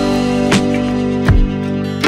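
Background music: sustained chords with a regular beat and plucked guitar.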